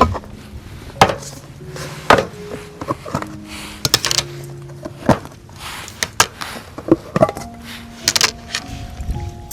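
A series of light knocks and clicks at irregular intervals, like items being handled and set down, over soft background music with slow held notes.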